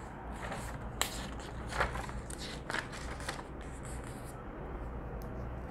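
Soft rustling and a few light clicks, with a sharp click about a second in, over a low steady room hum.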